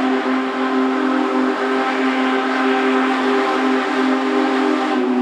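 Union Pacific Big Boy 4014's steam whistle sounding one long, loud blast: a steady chord of several tones over a strong rush of steam hiss.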